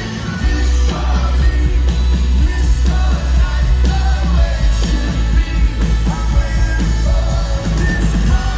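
Rock band playing live, loud, with a lead singer's voice over heavy bass and drums.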